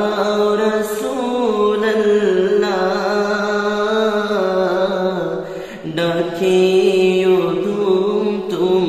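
A man singing a Bengali gozol (naat) in long held notes that bend slowly up and down, with a brief break for breath about six seconds in.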